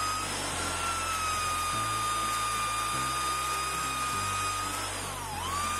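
Electric drill running a Kodenki 19 mm hole saw as it cuts into 18 mm plywood, with a steady motor whine. Near the end the whine dips sharply in pitch and comes straight back up.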